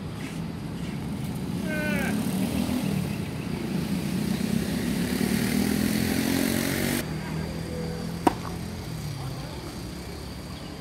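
A motor vehicle engine runs nearby and grows louder, then stops abruptly about seven seconds in. A second later comes a single sharp crack of a tennis racket striking the ball.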